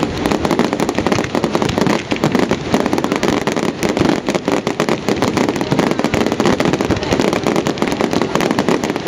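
Firework display: a dense, continuous rapid crackling of many small bursts going off close together.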